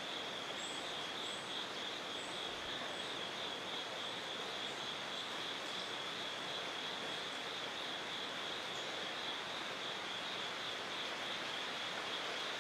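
Woodland ambience: a steady insect chorus making a continuous pulsing trill over an even hiss, with a few faint, short, high chirps in the first few seconds.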